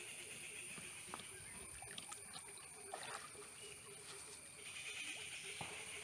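Pond water sloshing and trickling as a cloth net is dragged through it by hand, with small scattered splashes. A faint steady high-pitched hum runs behind it.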